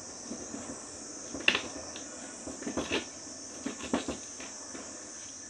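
Knife cutting through a peeled pineapple on a plastic tray: short sharp clicks and crunches as the blade goes through the fruit and taps the plastic, once about a second and a half in, then in small clusters around three and four seconds. A steady high hiss runs underneath.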